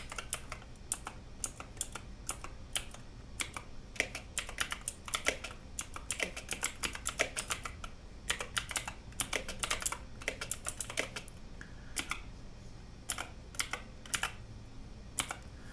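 Typing on a prototype X-Bows ergonomic mechanical keyboard fitted with clicky Outemu Blue switches: uneven, slow keystrokes clicking one after another, with short pauses between bursts.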